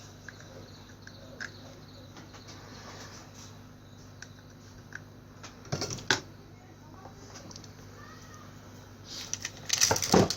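Clicks and clatter of small tools and parts being handled on a repair bench, during the replacement of a shorted component on a motorcycle digital meter board. There is a short clatter about six seconds in and a longer run of clicks and rattles near the end, over a steady low hum.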